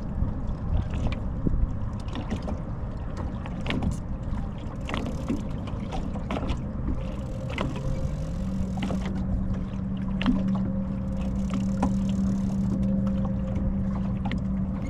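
Electric trolling motor humming, its pitch stepping up about eight seconds in as it is sped up and then holding steady, over a low wind rumble with scattered light knocks.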